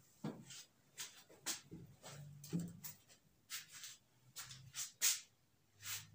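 Whiteboard eraser wiped across the board in quick strokes: a rapid string of short swishes, about fifteen, the loudest about five seconds in.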